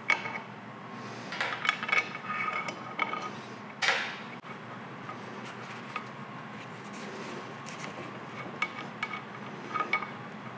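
Metal lathe slide parts clinking and knocking as they are handled and wiped on a bench, some strikes ringing briefly, with a louder knock about four seconds in.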